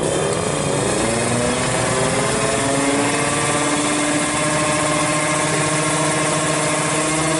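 Drag-racing motorcycle engine running on its paddock stand. Its pitch climbs over the first few seconds, then holds steady at a fast idle.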